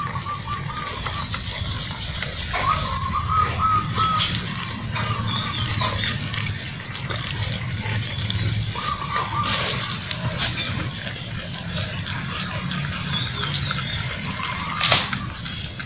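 Puppies eating cooked rice from a metal tray, chewing and smacking steadily. A few sharp clicks come as they knock against the tray, the loudest near the end.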